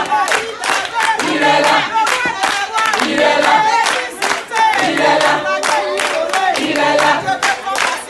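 A group of people singing together, with handclapping in time.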